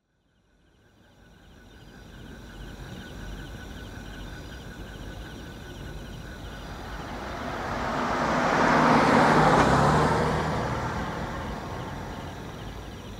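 A car approaching and passing by, swelling to its loudest about nine seconds in and then fading away, over a high, fast-pulsing chirp in the background.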